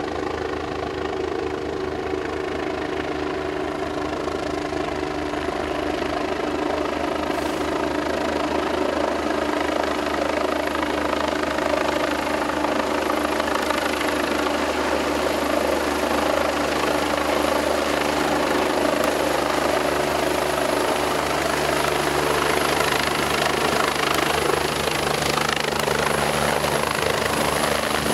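Air-ambulance helicopter (Eurocopter EC145) approaching and descending: a steady rapid rotor beat with a high turbine whine, growing gradually louder as it comes closer.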